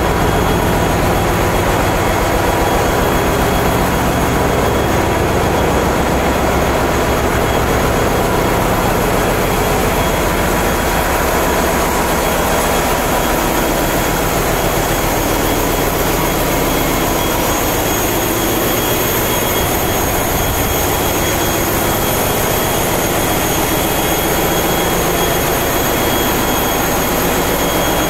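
Loud, steady machinery noise of a container ship's engine room, dominated by the diesel generator engines running, with a few thin, steady high whines over it.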